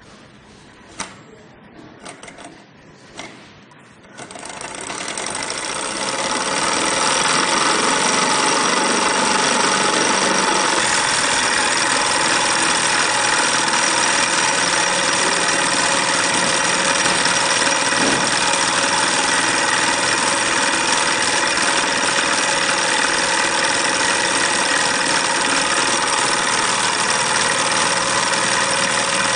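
Small metal Stirling engine: a few light clicks as the flywheel is turned by hand, then from about four seconds in it runs up to speed and settles into a steady, fast mechanical clatter.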